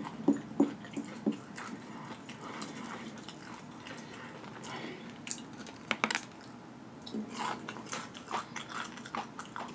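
Close-up mouth sounds of someone eating crumbs of ghost-pepper tortilla chips: wet chewing and lip smacking with light crunching, quick and regular during the first second or so, then slower, with a few sharp clicks later on.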